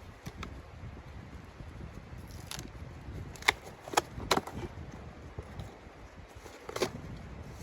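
A handful of sharp clicks or knocks, about five, the loudest a close run of three in the middle, over a steady low wind rumble.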